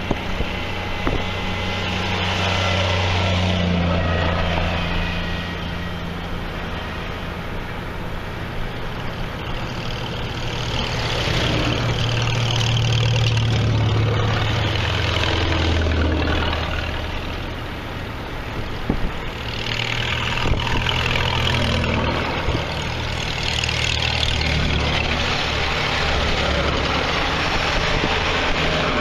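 Vintage farm tractor engines running as a line of tractors drives past one after another, a low, steady engine note that swells and fades as each tractor comes by.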